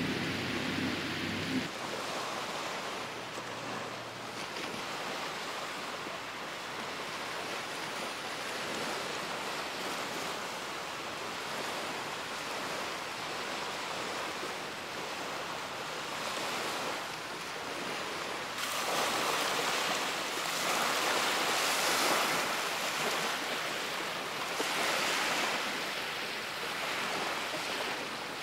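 Steady wash of small waves on a sandy beach, a hissing noise that grows louder and brighter about two-thirds of the way through. A low hum stops about two seconds in.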